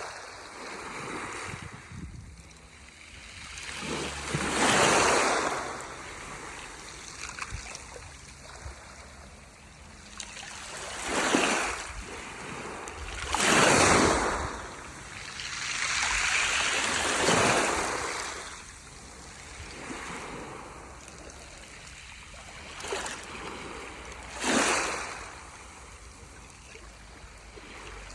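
Gentle waves splashing and washing in, several louder surges at uneven intervals of a few seconds, each swelling and fading over a second or two, over a steady wash of water.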